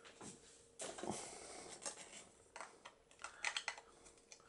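Light clicks and rustling of small plastic toy parts being handled: the gun turrets of a plastic toy spaceship taken off and fitted back on. A short rustle about a second in, then scattered clicks, with a quick run of them after three seconds.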